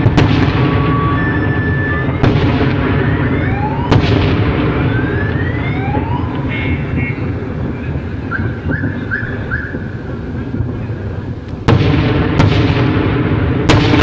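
Outgoing artillery fire: about five sharp booms, the loudest at the start and about twelve seconds in, each rolling off into a long low rumble. Between the shots an alarm sounds with rising sweeps and a run of four short beeps.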